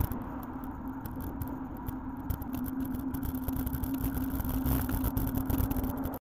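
Traffic and riding noise from a bicycle-mounted camera: low rumble with a steady hum and frequent sharp rattling clicks. It grows louder in the second half as a Land Rover Discovery towing a caravan comes up close behind, then the sound cuts off abruptly near the end.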